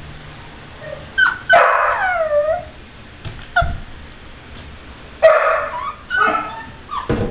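Blue nose pit bull puppy yelping and whining in high cries that slide down in pitch: one long cry about one and a half seconds in and another about five seconds in, followed by a few short cries. A thump comes near the end.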